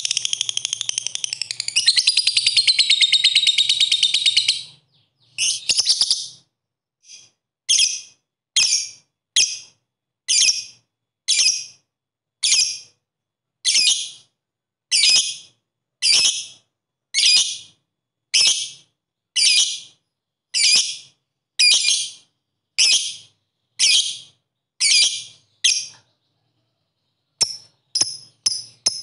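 Fischer's lovebird singing: a long, rapid chattering trill (the 'ngekek'), then a string of short, sharp chirps about one a second (the 'ngetik'), quickening near the end.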